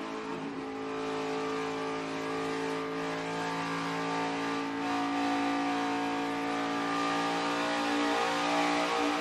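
NASCAR Xfinity Series stock car's V8 engine running flat out at high revs, heard from a camera mounted on the car. The drone holds a near-steady pitch, with a brief dip about eight seconds in.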